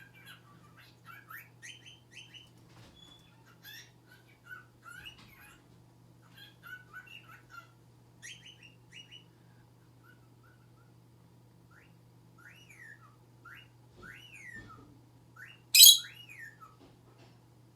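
Pet lovebird chirping and chattering in quick runs of short high notes, with rising-and-falling whistled glides, and one loud shrill squawk near the end.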